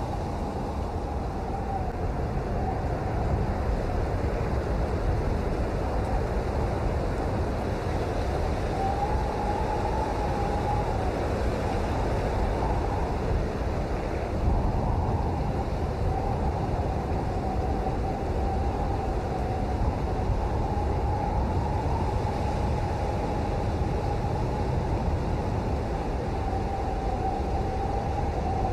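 Steady rain, an even hiss with a low rumble underneath, and a faint wavering tone drifting above it.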